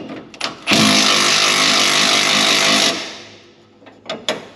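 A cordless impact wrench runs on a suspension bolt for about two seconds, then winds down. A few light clicks of metal follow near the end.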